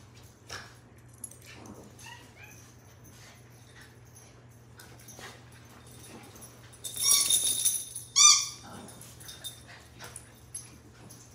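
Small dogs playing with a plush squeaky toy. A loud squeak runs for about a second from around seven seconds in, and a short sharp squeak follows about a second later. Faint rustles and paw taps fill the gaps.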